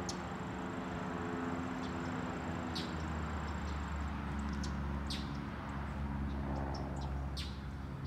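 Excavator's diesel engine running steadily, with short high chirps every two to three seconds over it.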